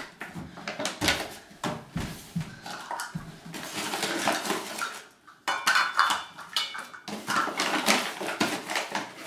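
Kitchen utensils clinking and scraping as flour is scooped out of its bag to be measured: an irregular run of knocks, scrapes and rustles.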